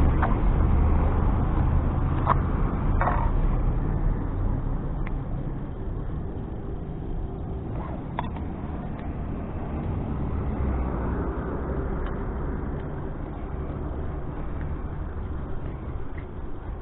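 Motor vehicle engine running with a steady low hum, loudest at first and fading over the first several seconds, with a few light clicks.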